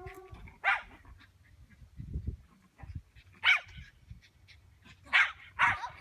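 Small dog barking in short, sharp barks as it runs: one about half a second in, one at about three and a half seconds, and two close together near the end.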